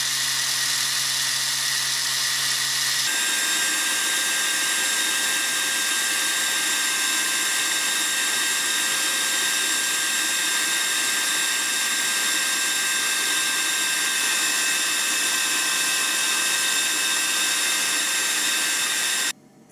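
Parkside angle grinder running steadily at full speed for about three seconds. Then a different steady machine noise with a high whine takes over and cuts off suddenly near the end.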